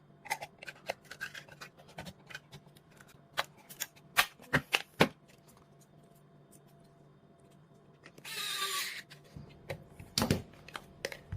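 Light clicks and taps of plastic battery-pack parts and foam pads being handled and fitted, with a few sharper knocks around four to five seconds in. Near eight seconds a rasping rustle lasts about a second, followed by another knock.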